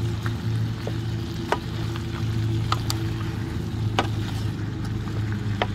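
Shrimp sizzling in a pan of tomato and garlic sauce while a wooden spatula stirs them, knocking sharply against the pan several times. A steady low hum runs underneath.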